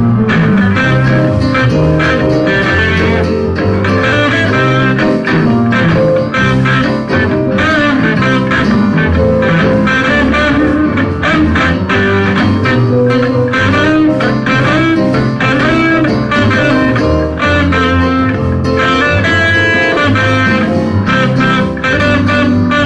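Instrumental church band music in a gospel style, with an electric guitar leading over bass and a steady drum beat.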